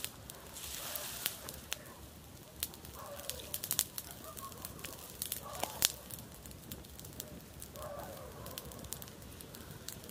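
Wood fire crackling, with sharp irregular pops and snaps. A few faint calls sound in the background, a couple of seconds apart.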